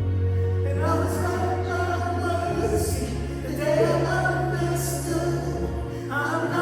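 Live praise and worship band music between sung lines: long sustained bass notes that change twice, with chords and cymbal hits above.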